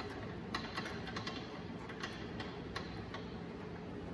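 Light, irregular metallic clicks and ticks as a bolt and washer are handled and threaded finger tight into a car's rear subframe brace, over a steady low hum.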